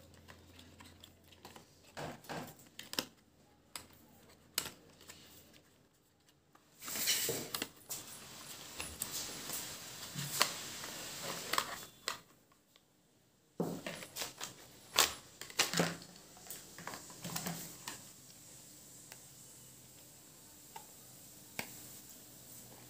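Unboxing handling noise: scattered light clicks and taps as the watch's charger and packaging are handled. In the middle there is a few-second stretch of rustling packaging.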